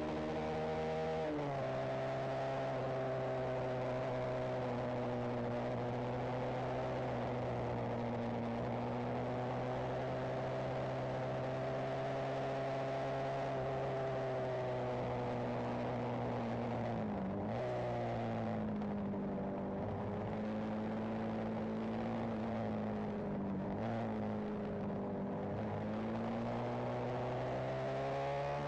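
Benelli TNT 125's single-cylinder four-stroke engine heard on board while riding, holding a steady note at cruising speed, with a sudden drop in pitch about a second in. Later the engine note dips and recovers twice as the throttle is eased and reopened, and climbs again near the end, over steady wind and road noise.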